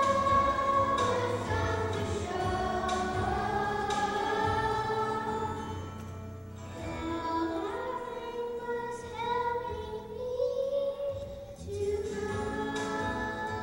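Children's choir singing long held phrases over instrumental accompaniment, with short breaths between phrases.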